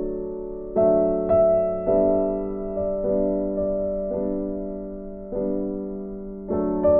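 Background music: slow piano chords, each struck and left to fade before the next, about one a second.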